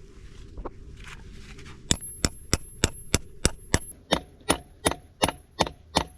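Hammer striking a metal concrete anchor bolt in a steady series of blows, about three a second, starting about two seconds in, with a thin high metallic ring over the strikes.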